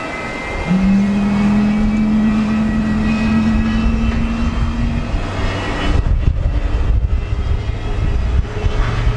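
Jet airliner engines running loud, a steady hum setting in about a second in and a deeper tone coming up near the end, over a gusty low rumble of strong wind on the microphone.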